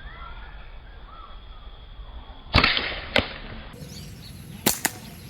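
Slingshot shot: a sharp snap of the rubber band with a brief rushing noise of the shot, then a single click and, near the end, two quick clicks. Small birds chirp faintly before the shot.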